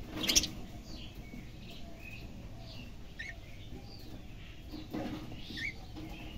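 Budgerigars chirping in a cage: many short high chirps scattered through, with a brief loud noise just after the start.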